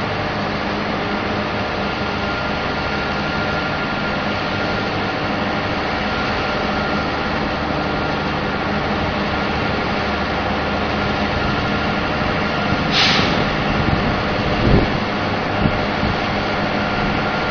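Heavy diesel engine of a drilling rig running steadily, a low drone with a faint high whine. There is a short burst of hiss about thirteen seconds in and a dull thump a couple of seconds later.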